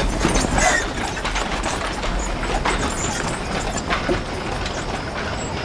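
A wooden handcart rolling past, its wheels rumbling and clattering, with scattered sharp knocks.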